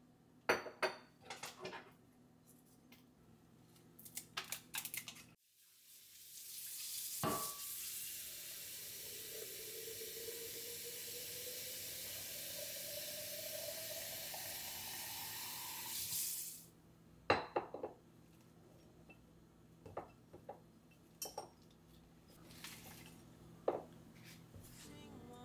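Kitchen faucet running into a glass flower vase for about ten seconds, the pitch of the filling water rising steadily as the vase fills, then shut off suddenly. Light clinks and knocks of the glass vase against the steel sink come before and after.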